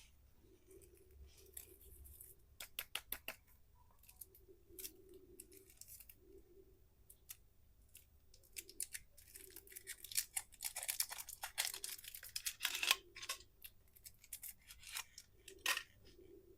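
Candy packaging handled close to the microphone: crisp clicks and crinkling in short bursts, densest about ten to thirteen seconds in.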